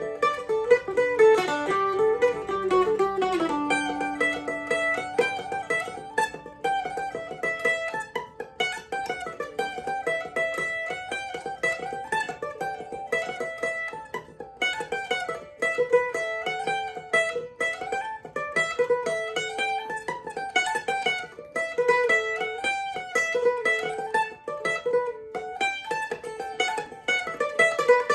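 Davey Mandolins fan-fret ten-string, a five-course mandolin-family instrument tuned CGDAE, playing a tune in quick picked single notes, with a low note ringing under the melody in the first few seconds.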